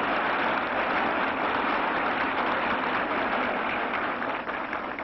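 Audience applauding and laughing in response to a joke from the speaker's podium, a steady wash of clapping that dies down near the end.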